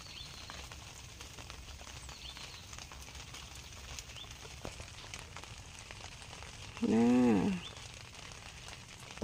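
Steady outdoor background hiss with faint, short high chirps repeating every second or two. About seven seconds in there is one loud voiced call, under a second long, whose pitch rises and then falls.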